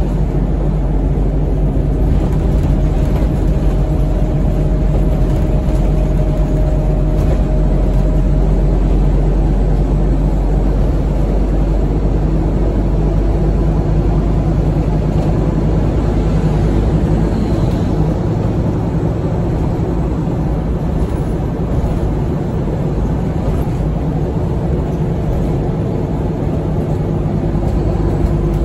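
Cabin noise of a Scania OmniCity N280UA articulated bus on the move: its diesel engine drones steadily under road noise, and the lowest part of the drone eases slightly about two-thirds of the way through.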